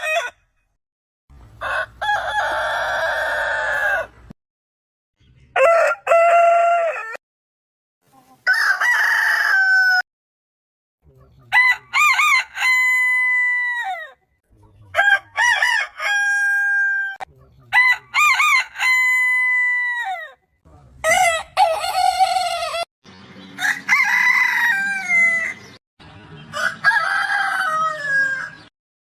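Roosters crowing, about nine separate crows one after another, each two to three seconds long, several ending in a long falling note, with brief dead-silent gaps between them.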